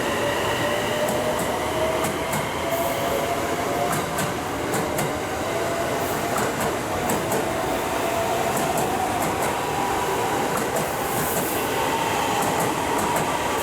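JR West 683 series electric train pulling out, its motor whine slowly rising in pitch as it gathers speed over steady rolling rumble. Wheels click over rail joints now and then.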